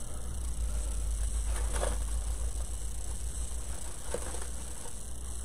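A low steady hum, with faint rustles and light taps of artificial greenery and floral picks being handled and pushed into an arrangement, twice briefly.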